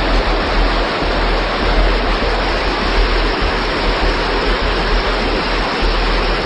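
Floodwater of a swollen creek rushing in a steady, loud roar.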